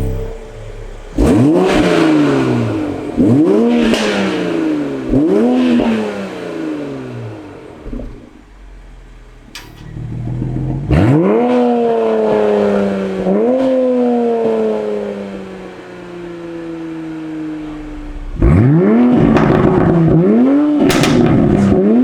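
Toyota Supra with a Borla cat-back exhaust being revved: three quick sharp blips, a lull, two longer revs that fall away slowly, then a run of quick blips near the end.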